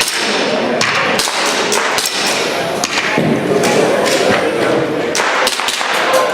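Airsoft pistol firing a string of sharp shots at uneven intervals, as in a practical shooting stage, over a background of voices.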